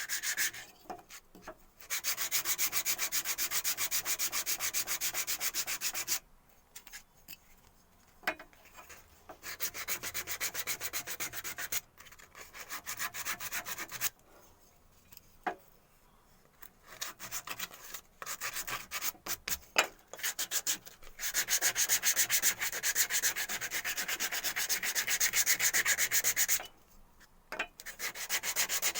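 Sandpaper rubbed by hand over wood in quick back-and-forth strokes, in several spells of sanding with short pauses between them.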